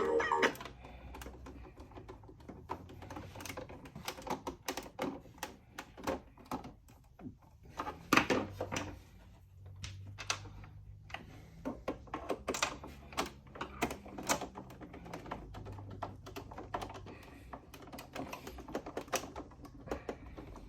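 Irregular light clicks and taps of hard plastic as the Sax-A-Boom toy saxophone's casing is handled and fitted back together, a few louder knocks among them.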